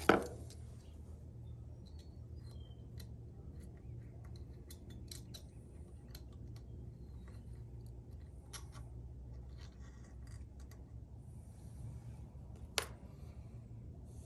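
Small metal parts clicking and clinking as they are handled on a workbench, with a sharp knock right at the start and another sharp click near the end, over a steady low hum.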